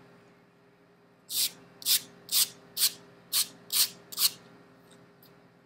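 A grooming brush stroked quickly through a dog's long, silky tail hair: seven short, hissy brush strokes, about two a second.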